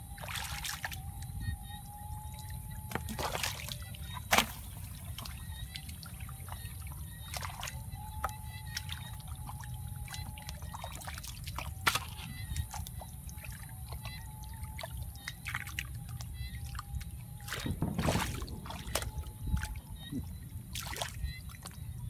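Hands groping through shallow muddy paddy water, with wet sloshing and squelching and scattered sharp splashes, a cluster of louder ones near the end.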